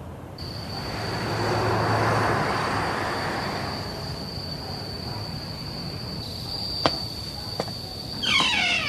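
Night ambience of insects chirring as one steady, high, unbroken tone. A swell of rushing noise rises and fades in the first few seconds, two sharp clicks follow later, and a falling squeal comes near the end.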